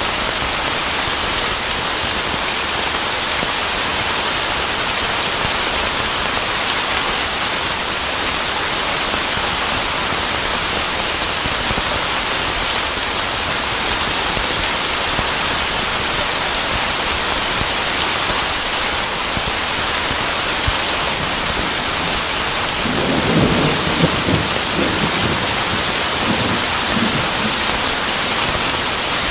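Steady, heavy rain hissing throughout. A low rumble of thunder comes in near the end, lasts a few seconds and fades.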